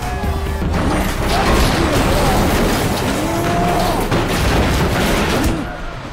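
Action-film fight soundtrack: music under a man's strained groans and grunts, with heavy blows and crashes.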